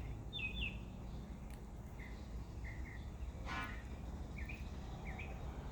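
Small birds giving short, scattered chirps over a steady low background hum.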